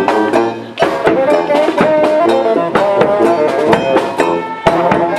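Brass street band playing a lively tune: saxophones, trombone and sousaphone carrying the melody and bass line over bass-drum and snare hits.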